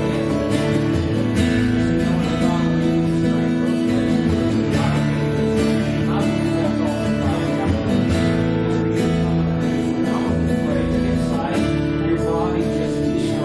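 Live church worship music led by strummed guitar, with held chords and a steady rhythm.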